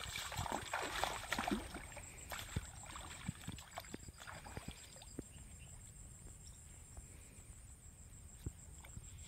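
Water sloshing and splashing as a person wades through shallow water, louder for the first two seconds, then fainter small splashes and clicks as he stands still and works among the branches.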